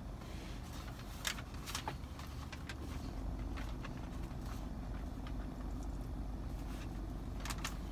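Steady low rumble inside a parked car's cabin, with a few short crunches and clicks from a man chewing and handling his food, a pair of them near the end.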